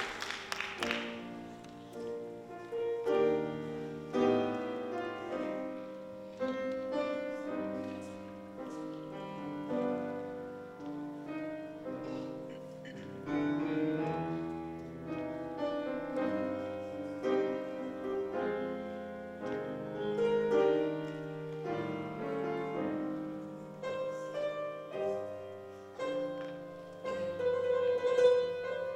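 Piano playing a slow passage of struck notes and chords, each note ringing and decaying. Applause dies away in the first second.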